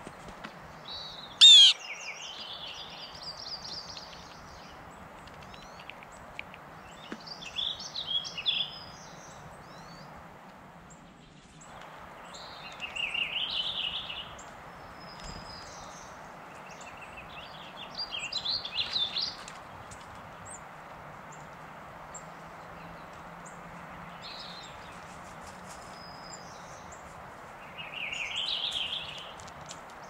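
Wild songbirds singing in short chirping phrases every few seconds over a steady background hiss. The loudest is a brief sharp note about a second and a half in.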